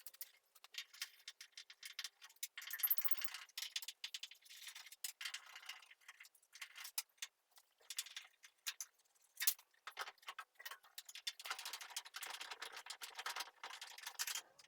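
Rapid metallic clicking and rattling in spells from a ratchet spanner working the door hinge bolts while a car door is taken off.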